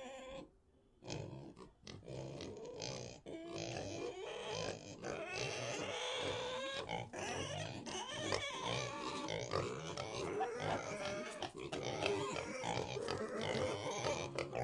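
Pigs grunting and squealing, a dense run of short calls one after another, with high squeals thickest from about five seconds in.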